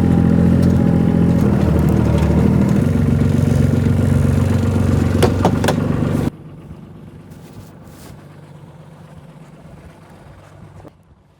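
A motor running with a steady, even hum, then shut off abruptly about six seconds in, with a couple of clicks just before; fainter background noise remains afterwards.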